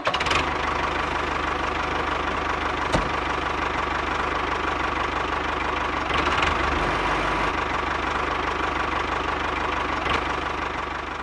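Motor of a handmade miniature toy tractor running steadily as it drives along pulling a loaded trailer; the sound fades out near the end.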